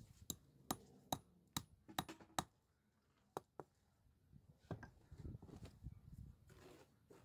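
Hammer knocking on stone in a foundation wall: six sharp strikes about two or three a second, then two more. In the second half, a low scuffing of a shoe on rough stones.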